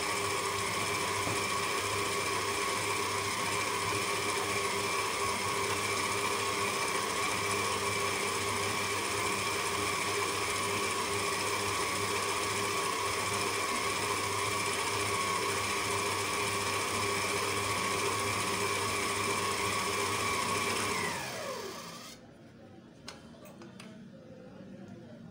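Electric stand mixer running at a steady speed, its flat beater mixing chocolate cake batter in a stainless steel bowl. About 21 seconds in it is switched off and the motor whine falls in pitch as it spins down, followed by a few light clicks.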